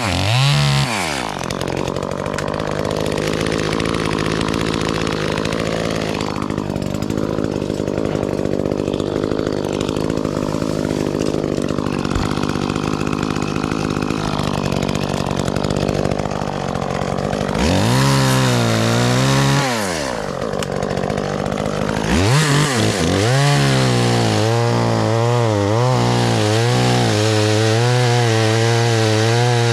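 Gas chainsaw engine: its revs drop right at the start and it runs lower and steadier for about sixteen seconds. It then revs up and down twice and holds high, wavering revs over the last several seconds.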